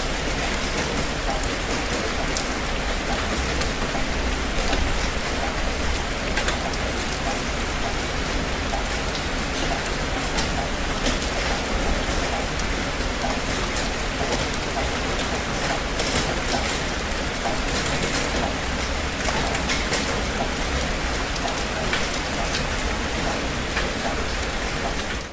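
Heavy rain falling steadily: a dense, even hiss with many individual drops striking a surface close by.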